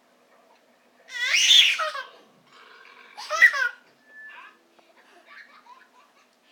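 Baby laughing in two loud, high-pitched bursts, the first about a second in and the second about three seconds in.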